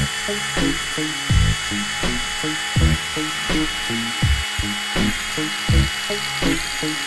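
Bosch cordless NanoBlade mini saw running under load with a steady high whine, cutting slowly into a green one-inch Douglas fir branch. Background music with a steady beat plays underneath.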